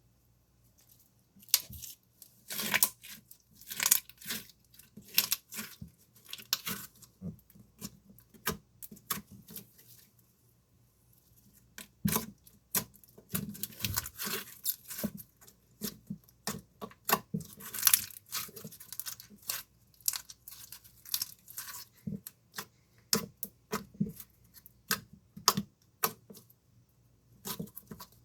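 Slime being handled by hand, making runs of sharp, irregular clicks and crackles, with a quieter stretch of a few seconds in the middle.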